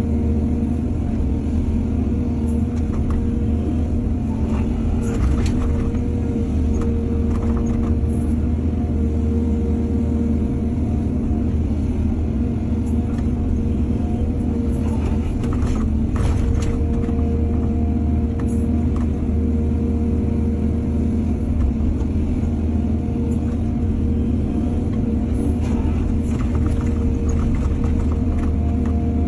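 Excavator's diesel engine running steadily under load, with occasional short knocks over it.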